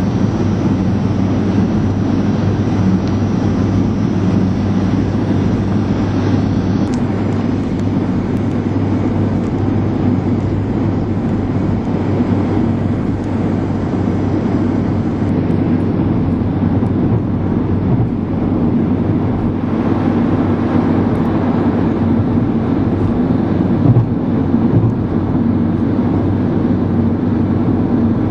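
Steady engine and tyre noise of a road vehicle cruising at an even speed, heard from on board.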